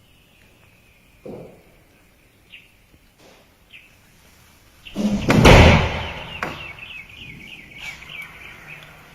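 High-pitched chirping calls, quickening into a fast run of chirps in the second half, with a loud rushing burst of noise about five seconds in.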